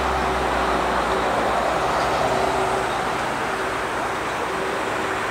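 Boeing 747-400 freighter's four jet engines running at taxi power as it rolls slowly past: a steady rushing noise with a steady whine, a little louder in the first few seconds.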